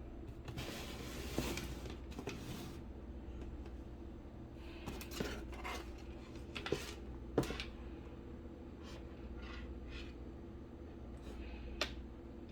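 Hands handling a shoe box and its contents during an unboxing: rustling for the first few seconds, then several light knocks and clicks, with one more near the end.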